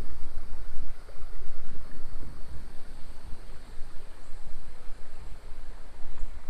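Small creek's water running, a steady rushing hiss, under an uneven low rumble.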